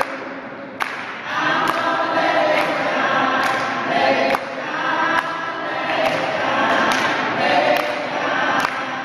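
A choir singing, with a sharp beat a little more often than once a second.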